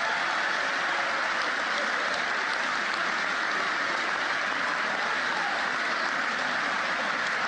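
Large banquet audience applauding steadily.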